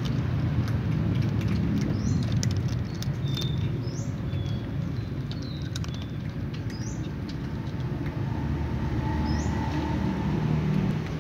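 Cats chewing dry kibble right at the microphone, with many short crunchy clicks. A few brief high chirps, like small birds, come through now and then.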